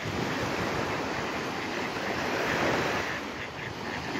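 Small lake waves breaking and washing steadily on a sandy shore, with wind rumbling on the microphone.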